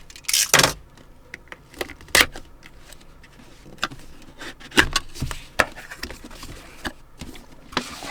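Cardboard mouse box and its packaging being handled and opened: irregular taps, clicks and short scrapes, with the loudest about half a second in, about two seconds in and around five seconds in.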